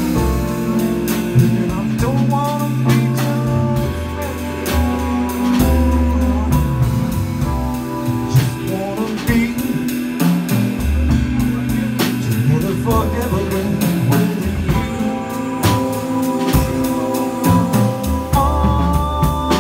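Live jazz trio playing: a saxophone carries the melody over a drum kit's steady drum and cymbal strokes, with a keyboard supplying chords and low bass notes.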